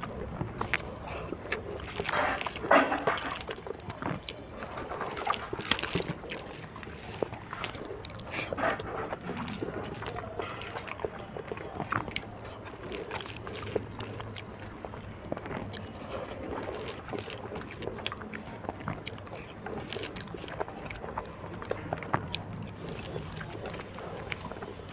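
Someone eating instant noodles by hand: wet chewing and fingers gathering noodles off steel plates, with scattered small clicks and knocks. A louder clatter comes between two and three seconds in.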